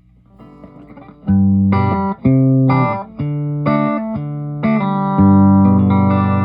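Electric guitar played through a freshly repaired A/DA Flanger pedal: a few soft picked notes, then loud sustained notes and chords from about a second in.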